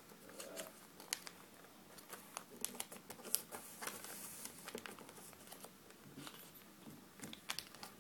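A sheet of origami paper being folded and creased by hand, with faint irregular crinkles and short clicks as its flaps are pressed to the middle.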